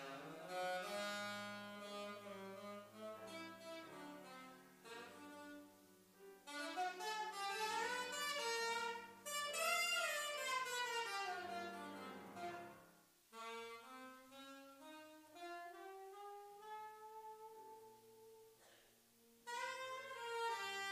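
Saxophone playing a slow melodic solo over grand piano accompaniment, in phrases of long held notes that swell and fade, with a long note sliding slowly upward about halfway through.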